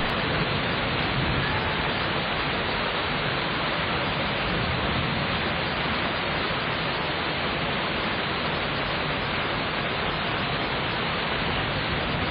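Steady rain falling, an even hiss with no thunder in this stretch.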